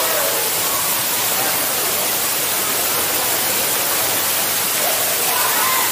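Steady, even hiss of water falling and running in a water park's shallow pool and slides.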